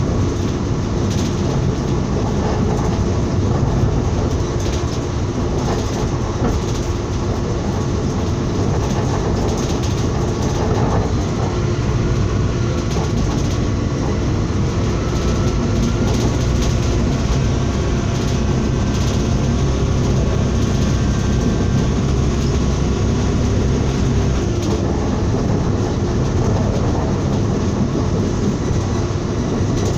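Passenger train running steadily at speed, heard from inside the carriage: a continuous low rumble with faint scattered clicks of the wheels over the rails.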